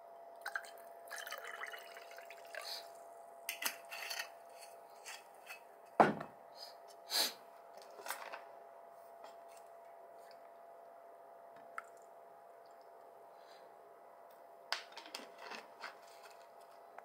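Whisky poured into a glass of carbonated lemon soda, with glass and bottle clinks and a heavy thump of a bottle set down on the table about six seconds in. After that the drink fizzes with faint scattered ticks.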